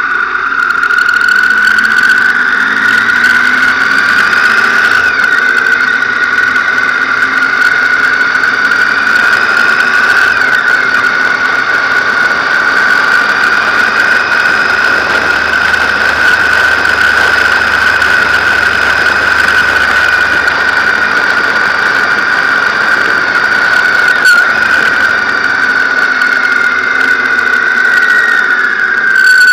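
On-board riding sound of a BMW R1200GS motorcycle on the move: wind rush with a loud, steady, high-pitched whine throughout, and fainter whines that rise and fall as the speed changes.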